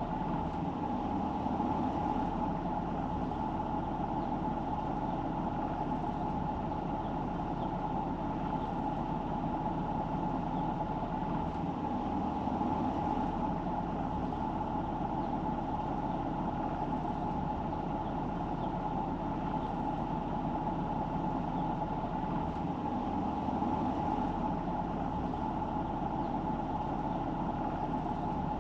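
Steady road noise of a car driving: tyres and engine running at an even level without a break.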